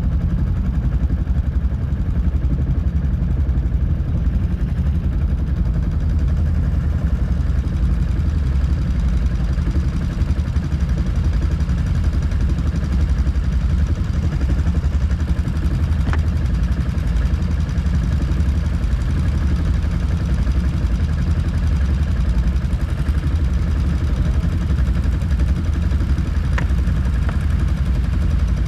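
ATV engine running steadily, with a low, even drone and two brief clicks partway through.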